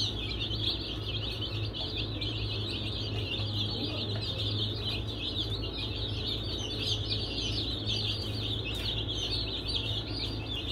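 A flock of baby chicks peeping without pause, a dense chorus of many quick high chirps, over a steady low hum.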